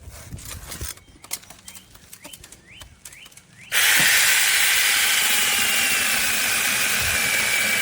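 A few faint clicks, then about halfway through a small battery-powered brushless mini chainsaw starts abruptly and runs steadily with a high whine that sags slightly in pitch, as when cutting into wood.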